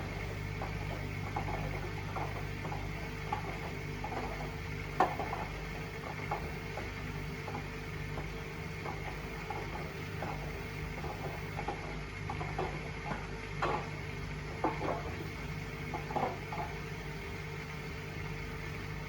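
Washing machine running on a test cycle after an F05 error repair: a steady hum with scattered, irregular light knocks and clinks.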